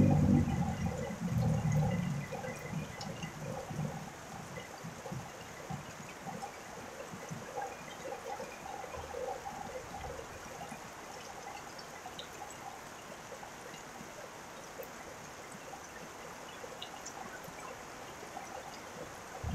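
Steady rain and trickling water, with faint repeated animal calls over it. A louder low ringing tone dies away over the first few seconds.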